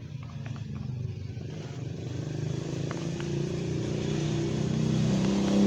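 A motor vehicle's engine running, growing steadily louder as it approaches, with a few faint clicks over it.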